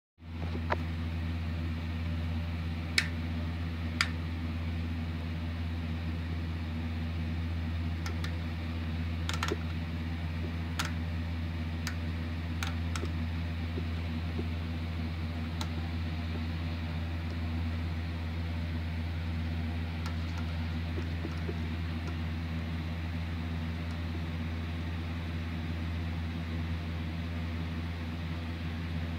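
Steady electrical hum of a Soviet interceptor's airborne radar equipment running, with a few sharp clicks in the first half.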